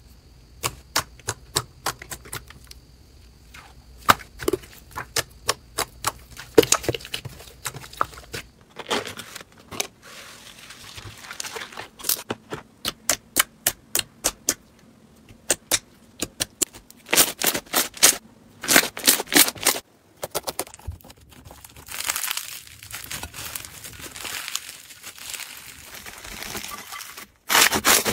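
Slime being poked, pressed and squeezed by hand: a string of sharp pops and clicks from trapped air, some in quick runs, with stretches of softer crackling and squishing later on.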